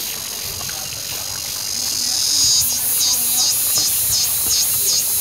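High-pitched insect buzzing that swells about two seconds in, then pulses evenly about two to three times a second.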